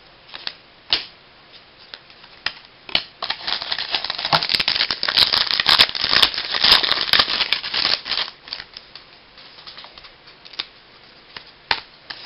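Baseball trading cards being handled and flipped through by hand: a few sharp clicks as cards snap against each other, then about five seconds of dense, crinkly rustling a few seconds in, then scattered clicks again.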